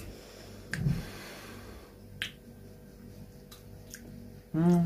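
A few sharp isolated clicks and a brief low rumble of handling noise about a second in, then near the end a man's short voiced 'mmm' as he tastes.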